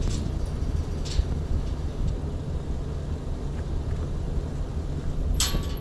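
Pickup truck engine idling with a steady low rumble; a brief rattle about five and a half seconds in.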